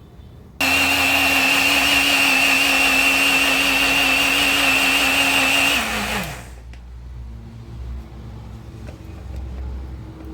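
Mondial mini blender switched on, its motor running steadily with a high whine for about five seconds while blending strawberries and milk, then switched off and spinning down with a falling pitch.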